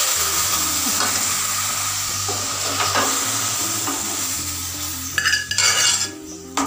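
Cooked chicken and its broth sizzling and hissing after being poured into hot tempering oil in a metal pot, the sizzle slowly dying down. Near the end a metal ladle scrapes and clinks against the pot as the curry is stirred.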